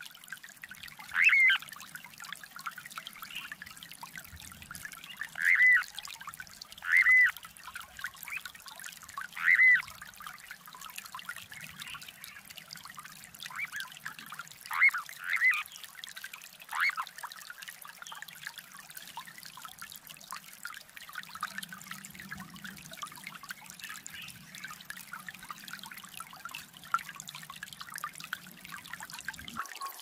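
Little ringed plover giving short, clear whistled call notes, each rising then falling, about seven times over the first half, over a steady trickle of running water.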